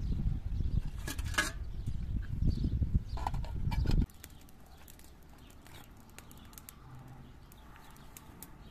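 Water pouring from an aluminium milk can into a kettle, a low splashing gurgle with a knock about a second in; the pouring sound cuts off abruptly about four seconds in, leaving only faint scattered clicks.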